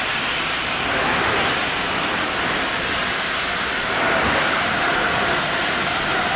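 LNER class A4 steam locomotive 60007 Sir Nigel Gresley moving off, with a loud, steady rushing hiss of steam.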